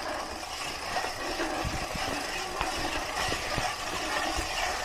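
Gravel bike rolling over a rough trail, with steady noise from the bike and a few low knocks from bumps in the middle. A disc brake rotor is rubbing, which makes the bike noisy: the rotors have snagged.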